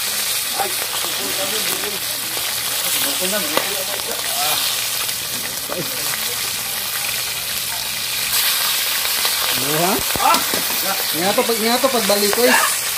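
Small whole fish frying in hot oil in a wok, sizzling steadily, with a metal spatula scraping the pan as the fish are turned.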